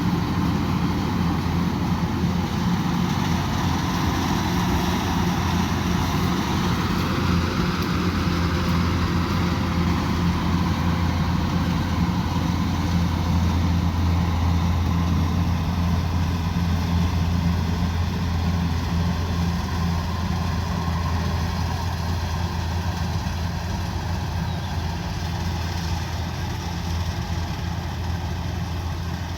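Combine harvester's diesel engine running at a steady speed with a deep, even hum, easing slightly toward the end.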